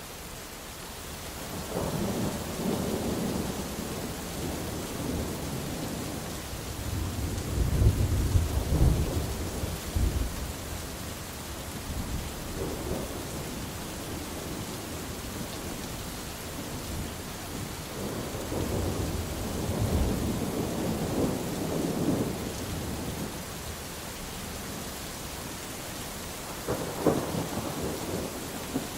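Thunderstorm: steady rain with several rolls of thunder. A low rumble sets in about two seconds in, the loudest roll with sharp cracks comes around eight to ten seconds, another long roll runs past the middle, and a short sharp crack comes near the end.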